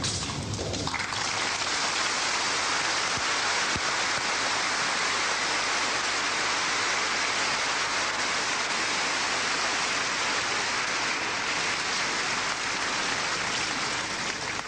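Audience applauding: dense, steady clapping that builds over the first second.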